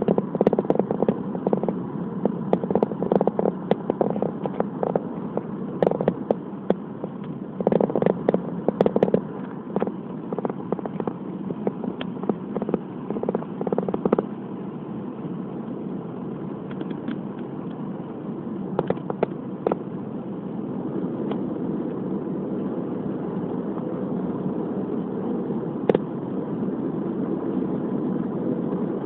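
Steady road and engine noise heard from inside a moving car, with many sharp clicks and crackles through the first half that thin out to a few later on.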